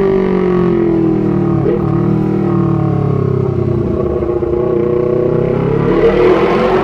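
2017 Honda CBR250RR's parallel-twin engine running through a short Proliner TR-1 full-system exhaust. Its pitch falls over the first second or two, then climbs steadily and grows louder toward the end.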